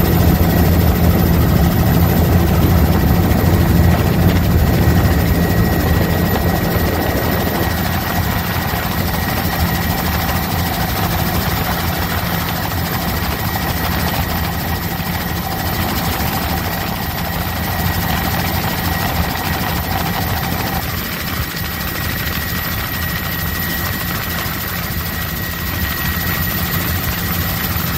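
Helicopter in flight, heard from on board: a steady low drone from the rotor and engine with a thin high whine above it, easing slightly in loudness over the stretch.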